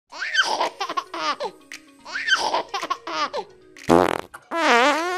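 Dubbed-in cartoon sound effects: a baby's giggle played twice, then comic fart noises near the end.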